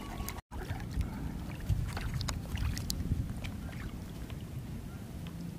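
Water sloshing and lapping around a man wading waist-deep as he handles a staked fishing net, with small scattered splashes over a steady low rumble. The sound drops out completely for a moment about half a second in.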